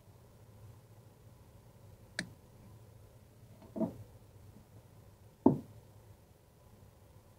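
Three sharp clicks and knocks from wire crimpers and cutters being handled at the air handler's wiring, the last one the loudest, over a faint low hum.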